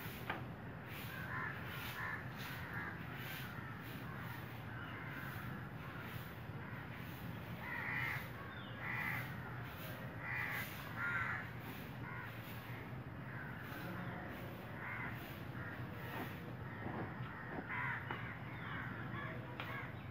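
Crows cawing repeatedly, a string of short harsh calls that are loudest about eight to eleven seconds in.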